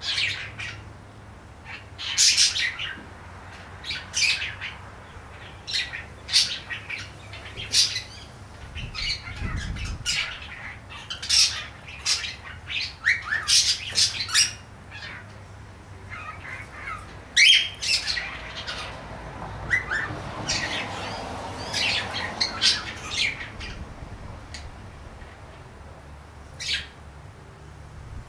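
Cockatiel chattering: a run of short chirps and squawks, irregularly spaced and sometimes bunched in quick runs.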